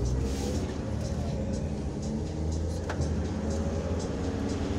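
Motor vehicle engine running with a steady low rumble, with a few sharp clicks.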